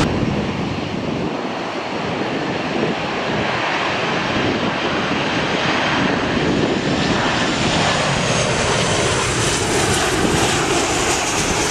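Boeing 737 airliner's jet engines on final approach: a steady rushing roar, with a high whine that comes up about halfway through and slowly slides down in pitch as the aircraft passes. Gusty storm wind buffets the microphone underneath.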